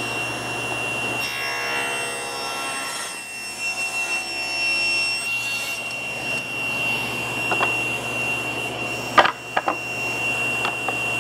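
SawStop table saw running with a steady high whine, its blade cutting a small wooden block for about four seconds from about a second in. A few sharp knocks of wood come later, the loudest about nine seconds in.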